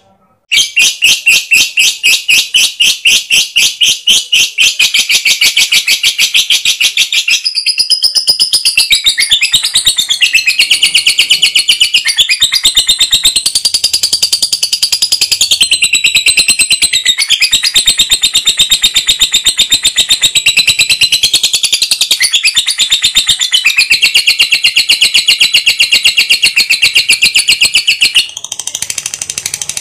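Lovebird giving a long, unbroken chatter (ngekek): a rapid string of shrill notes, many a second, that wavers in pitch after about eight seconds and breaks off briefly near the end.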